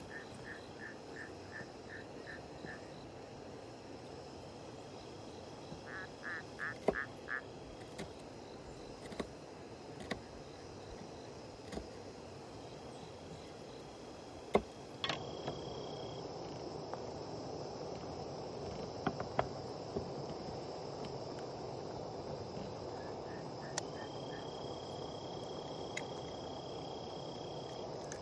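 Night ambience of pulsed chirping trills from night creatures, with a knife making a few sharp taps against a wooden cutting board as chillies are sliced. About halfway through the background becomes a louder, steady hiss, and a long high, even chirring tone sounds near the end.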